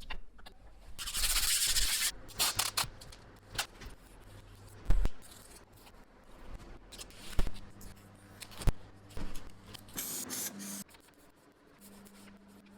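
Metalworking sounds on a vice being restored: a loud hiss about a second in and a shorter one near the end, scraping in between, and several sharp metal knocks, the loudest about five seconds in.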